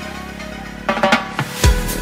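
Background electronic dance music with a heavy kick drum. The beat drops out for about the first second, then a few sharp hits lead back into the kick near the end.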